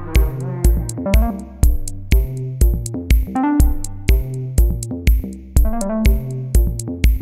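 Background electronic music: a synth melody over a steady drum-machine beat, about two beats a second.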